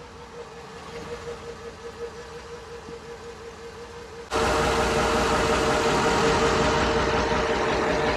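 Crusader 6.0 inboard marine engine idling steadily and smoothly on a freshly fitted fuel filter and new fuel pumps. It gets suddenly much louder about four seconds in.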